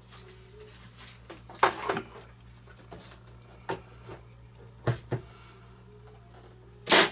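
Brad nailer firing brads into a board: two loud, sharp shots, one about two seconds in and one near the end, with smaller knocks and clicks from handling the work in between.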